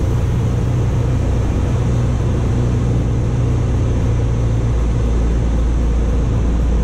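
Cessna 172's engine and propeller running steadily, heard inside the cockpit as a loud, constant drone.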